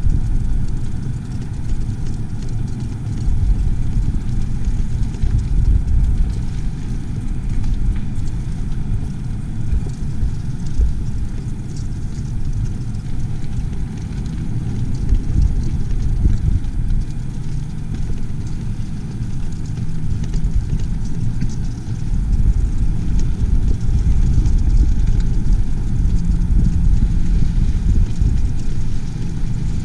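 Steady low rumble of a vehicle on the move, heard from on board, with no distinct events.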